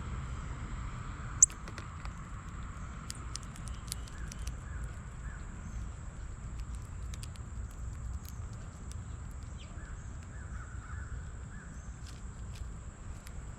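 Wild birds calling in short series of three or four, over a steady low rumble, with scattered light ticks and one sharp click about a second and a half in.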